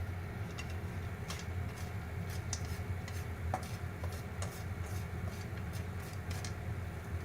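Popcorn kernels popping sporadically: faint, irregular sharp pops, about a dozen, over a steady low hum.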